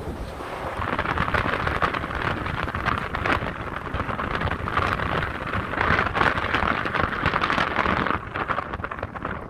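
Car tyres running through slush and wet snow, a dense spattering hiss that swells about a second in and eases near the end.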